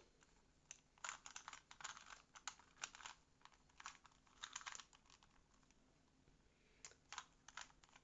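Rubik's cube being turned by hand: faint, quick runs of plastic clicks and clacks as its layers are twisted, with a sparser pause of a second or two just past the middle.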